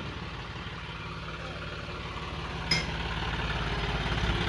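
Tractor diesel engine idling steadily, growing gradually louder toward the end, with one sharp click about two-thirds of the way through.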